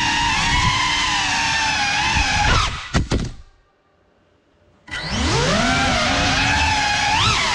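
A Cinelog 35 cinewhoop's brushless motors whining, the pitch bending up and down with throttle. About three seconds in, the whine drops away with two sharp knocks, then there is about a second of near silence before the motors spin back up with a rising whine.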